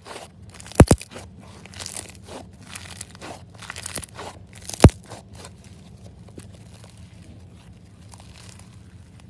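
Slime being pressed and squeezed by hand, crackling, with sharp pops twice about a second in and once, loudest, near five seconds. The crackling thins out in the last few seconds.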